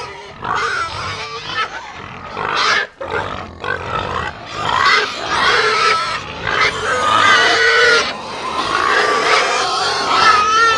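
Animals calling: many overlapping wavering calls over a dense, continuous noisy background, getting fuller about halfway through.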